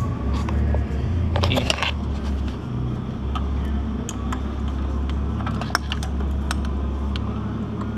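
Handling noise in a car's engine bay: a cluster of light rattles about one and a half seconds in, then single sharp plastic-and-metal clicks, over a steady low rumble.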